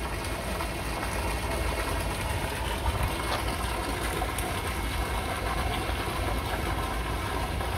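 A motor running steadily with a low, even rumble.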